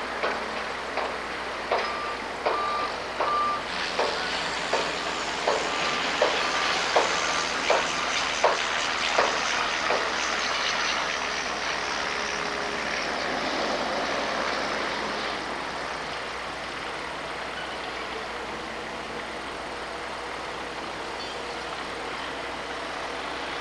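Heavy construction machine's reversing alarm beeping in a repeated series during the first ten seconds, over steady engine and site noise. A run of sharp knocks, a bit more than one a second, sounds alongside the beeps and stops about ten seconds in.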